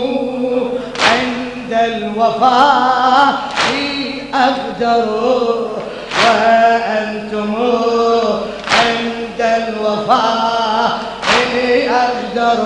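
Men's voices chanting an Arabic Shia mourning lament (latmiya) over a microphone in a reverberant hall. A loud, even thud keeps the beat about every two and a half seconds.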